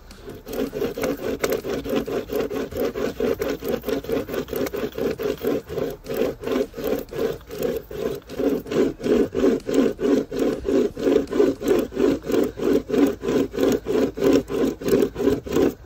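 A manual pocket chain saw, a 63-tooth cutting chain pulled back and forth by two hand straps, sawing through a log about 20 cm thick. It runs in steady alternating strokes, about three a second, as the chain teeth cut into the wood.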